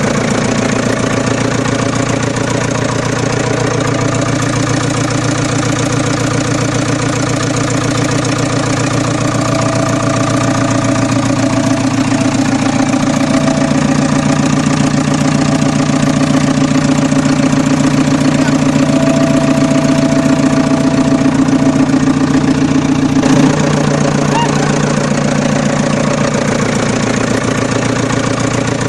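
JCB 3DX backhoe loader's diesel engine running steadily. It gets a little louder, then drops back abruptly a little over 23 seconds in.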